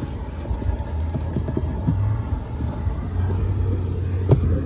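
Car wash vacuum hose running with a steady low drone while pulling only weak suction, barely picking anything up. A sharp knock comes about four seconds in.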